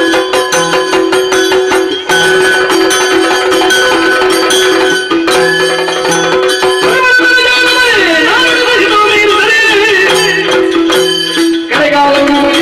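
Yakshagana ensemble playing: chande drum and maddale strokes with hand cymbals keeping the beat over a steady held drone. A voice sings in gliding phrases for a few seconds in the middle.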